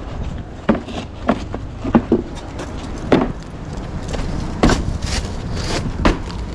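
A string of sharp, irregular knocks and clacks, about seven over the few seconds, like tools and materials being handled and set down during work, over a steady low outdoor rumble.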